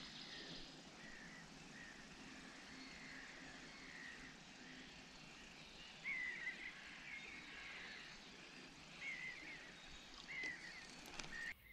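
A bird calling in short chirps, several times in the second half, over faint steady outdoor background noise, with a few soft clicks near the end.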